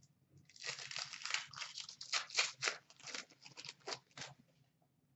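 Hockey trading cards being handled and slid through the hands: a run of short, dry rustling and scraping strokes that stops a little after four seconds in.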